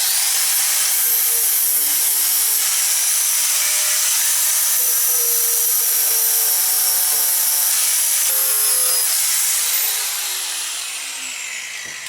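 Angle grinder taking rust off a thin sheet-steel box to clean it before tack welding, running steadily under load. About ten seconds in it is switched off and winds down, its whine falling in pitch as it coasts to a stop.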